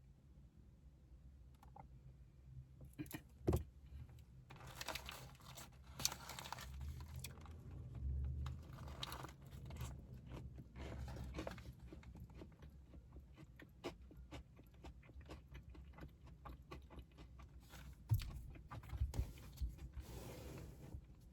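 Close-up eating sounds: a crispy fried chicken sandwich bitten and chewed, with crunching and small clicks and a few louder crunches.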